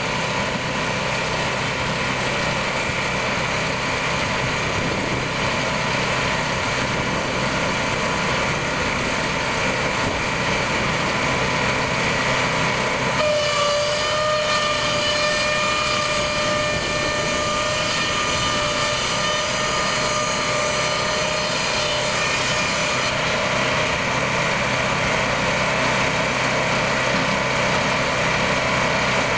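Cook's board edger running steadily, its engine and spinning split strobe saw blades making a constant din. About halfway through, a steady whine rises over it for around ten seconds as a board is fed through and the blades trim the bark edges off both sides.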